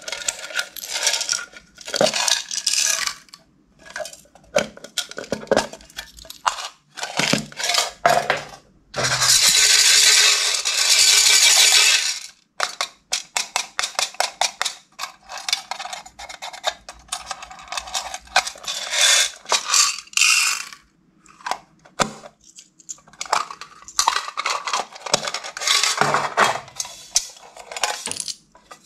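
Clear slime being mixed and squished, giving a dense run of short sticky pops and crackles, with a louder unbroken stretch of squelching about nine to twelve seconds in.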